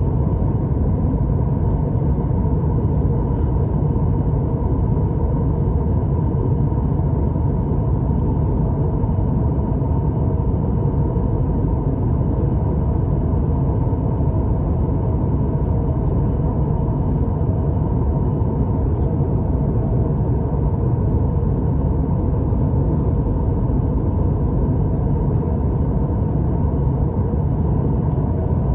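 Steady low rumble inside a Boeing 737-900ER airliner cabin: its CFM56-7B jet engines and the airflow over the fuselage, heard from a window seat over the wing during the descent to land.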